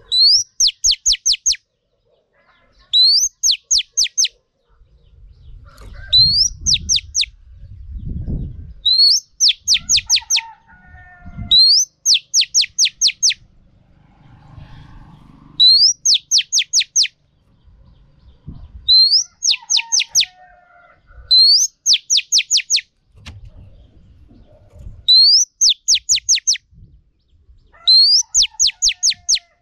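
Female oriental magpie-robin calling over and over, a short high phrase about every three seconds: one rising whistle, then four or five quick falling notes. It is the female's call used to rouse male magpie-robins into song.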